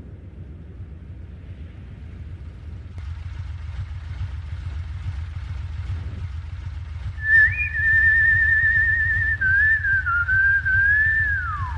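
About seven seconds in, a whistled tune starts on a high note. It wavers in a quick trill, dips, returns, and slides downward near the end. Under it runs a steady low rumble.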